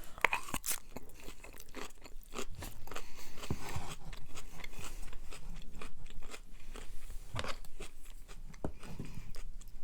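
Close-up chewing of a mouthful of sloppy Joe casserole, with irregular mouth clicks and smacks.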